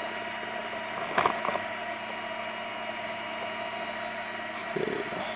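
Geeetech MeCreator2 3D printer's cooling fans running with a steady whirring hum while the hotend heats. A brief knock about a second in.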